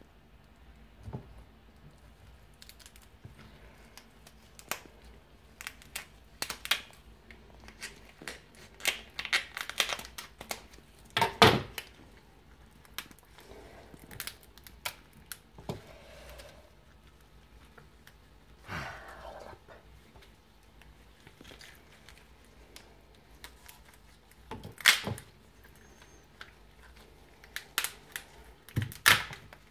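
Cooked lobster shell being cut with kitchen scissors and broken apart by hand: irregular snips, cracks and crunches, the loudest a sharp crack about a third of the way in.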